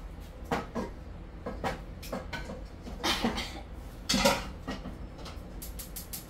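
Metal cooking pot clanking as it is set down and shifted on a gas stove's grate, several knocks with the loudest about three and four seconds in. Near the end comes a quick run of clicks from the gas burner's igniter being lit.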